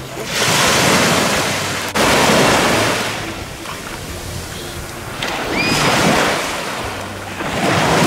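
Small sea waves breaking and washing up onto a sandy beach, swelling and fading every two to three seconds, with a sharp click about two seconds in.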